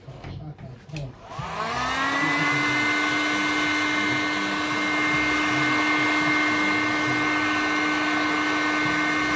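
Electric hot-air blower switched on about a second in: its motor whine rises as it spins up, then holds a steady pitch over an even rush of air. It is drying the wet-sanded marble surface.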